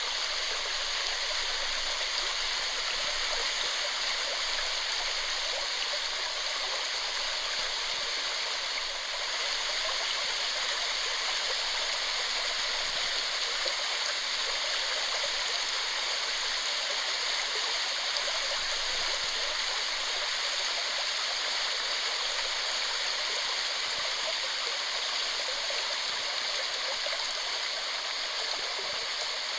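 Steady rushing of water falling at a waterfall, an even hiss without pause.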